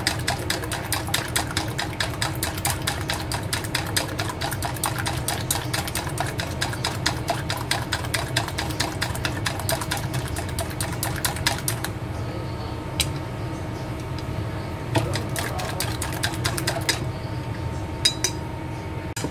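Chopsticks beating eggs in a stainless steel bowl: a rapid clatter of wood tapping against metal that stops about twelve seconds in, then comes back in a few short bouts near the end. A steady low hum runs underneath.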